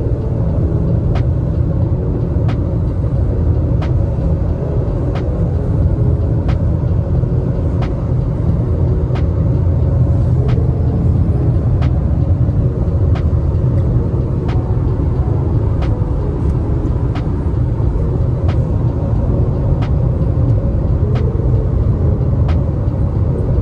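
Car driving on the road: steady, loud low rumble of engine and tyre noise, with faint regular ticks about every three-quarters of a second.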